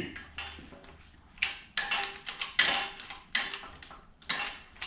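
Hydraulic shop press being hand-pumped to press a bearing off a transmission shaft held in split jaws: a series of about five metallic pump strokes, roughly one a second.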